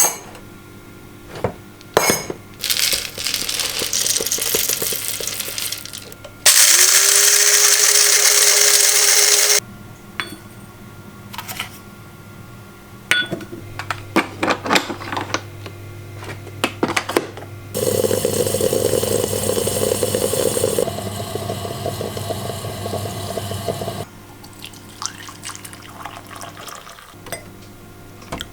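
Kitchen sounds of making coffee: clinks and knocks of cups and utensils. About six seconds in, a small electric motor spins up with a rising whine and runs for about three seconds. Later comes a steady rushing hiss lasting about six seconds.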